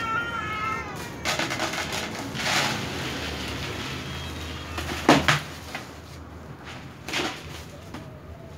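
A cat's meow trails off at the start. Then come a series of clattering knocks and scrapes as feeding bowls and cups are handled and set down on the concrete floor, the sharpest about five seconds in and another about seven seconds in.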